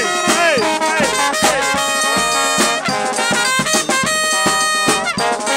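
Second line brass band playing: trumpets and trombones over a steady drum beat, with the horns sliding down in pitch on several notes.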